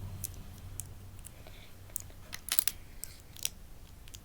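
Small plastic Lego pieces clicking and clattering as they are picked up and pressed into place: scattered sharp clicks, with a quick run of them a little past halfway.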